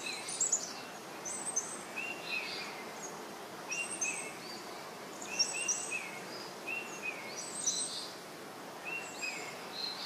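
Birds chirping over and over in short, high calls, some pitched higher than others, a call every second or so, over a steady background hiss.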